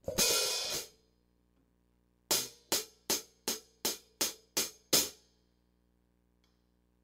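14-inch hand-hammered B20 bronze hi-hat cymbals (LDS Hibrido). One open, washy stroke is cut off within a second. After a pause come eight evenly spaced, crisp strikes, about three a second, each ringing briefly.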